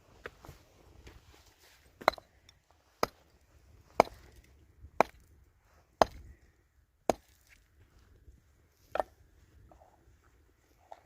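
Seven sharp chopping blows at about one a second, with a longer pause before the last.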